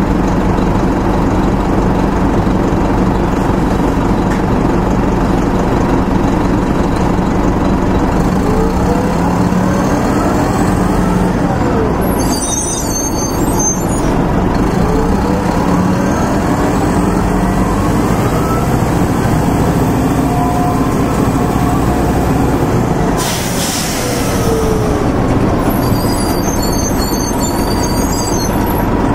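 1996 Nova Bus RTS-06 transit bus's Detroit Diesel Series 50 engine and Allison VR-731 automatic transmission heard on board: the diesel runs under load, its pitch climbing several times as the bus accelerates through the gears. A short hiss of air is heard about three-quarters of the way in.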